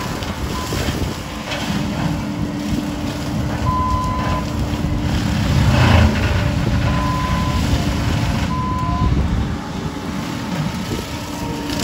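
Bobcat compact track loader running with its brush cutter attachment spinning, engine steady under load. Its backup alarm beeps briefly three times, about 4, 7 and 9 seconds in, as it reverses, and brush crunches under the cutter about 6 seconds in.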